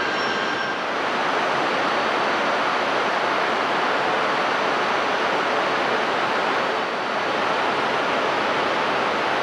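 JR E2 series Shinkansen train giving a steady rushing noise, with a high steady whine that stops about a second in.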